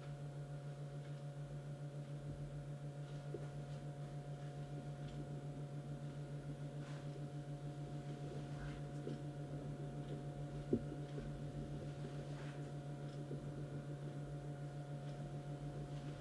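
Steady low electrical hum from a powered-up Heathkit O-5 vacuum-tube oscilloscope, with a slight regular pulsing and a few fainter higher tones. Faint scattered clicks sound throughout, with one sharp click about eleven seconds in.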